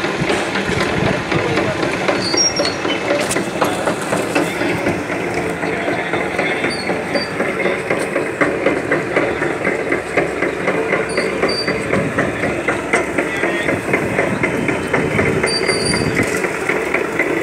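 Electric sugarcane crushing machine running steadily with a loud, fast, continuous mechanical clatter.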